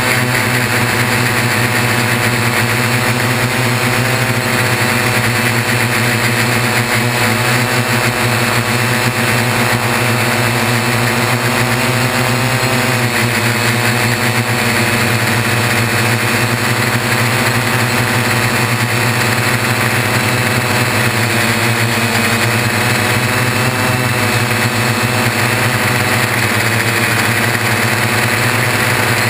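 The six brushless motors and propellers of a Y6 multirotor in flight, heard through a GoPro hardmounted to the frame's landing gear: a steady buzz with a layered whine that drifts slightly up and down in pitch.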